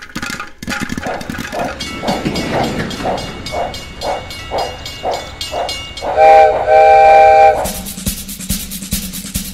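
Steam locomotive chuffing at about two chuffs a second, then its steam whistle blowing twice, a short blast and then a longer one, which is the loudest sound. A steadier rumble of the train follows near the end.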